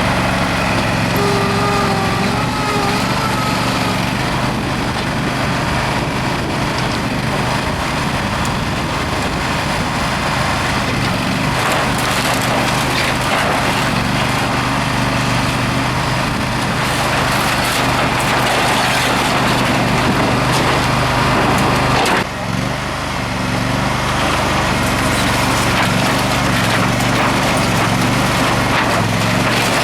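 A Dig-It 198-T backhoe's engine runs steadily, with wood cracking and splintering as the machine tears into a shed. The level dips briefly about two-thirds of the way through.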